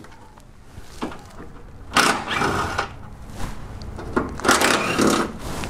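Compact cordless impact wrench running in two short bursts, about two and a half seconds apart, spinning out pre-loosened 13 mm bolts.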